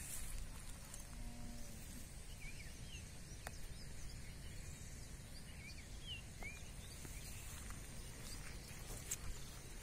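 Quiet outdoor ambience: a steady low rumble with faint, scattered short bird chirps.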